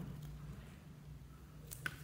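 Low steady hum with the slime lying still, then near the end a short soft squelch and click as hands press into clear glitter slime.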